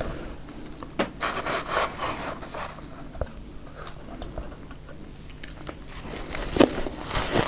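Freezer frost being scraped with a spoon and crunched: sharp clicks and bursts of crisp scraping and crunching, thickest about a second in and again near the end.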